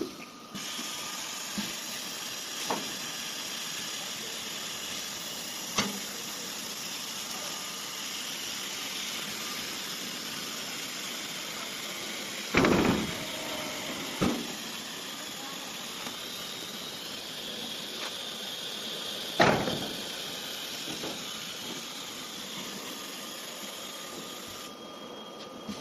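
CNC nesting router at work: a steady high hiss of the running spindle and machine, broken by a few sudden short loud noises, the loudest about halfway through and another about three-quarters of the way in.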